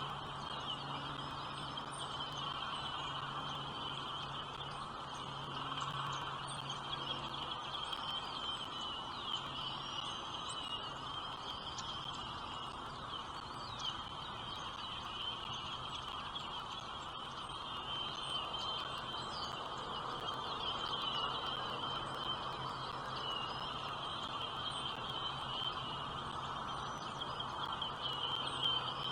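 Birds calling: a steady, wavering high chorus with scattered short chirps over it, and a low hum underneath.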